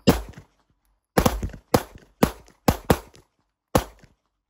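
Two Walther PDP F-series 9mm pistols firing, about seven shots in all at uneven spacing, some about half a second apart as the two shooters' shots fall between each other; each report dies away quickly.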